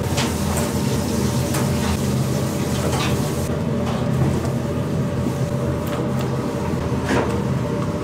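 Kitchen noise: a steady low machine hum, with a few sharp knocks and clatters of utensils.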